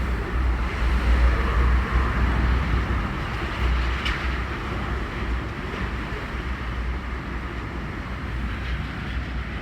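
Strong typhoon wind gusting and buffeting the microphone, a heavy uneven rumble with a steady rushing hiss over it.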